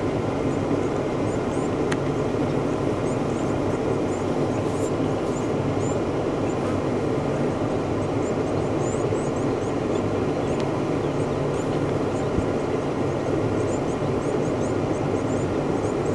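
Steady low rumble of an idling vehicle engine, with faint high bird chirps now and then.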